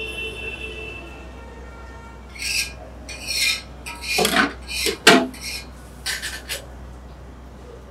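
Glass sliding door of a display counter scraping along its track in several strokes, with a sharp knock about five seconds in.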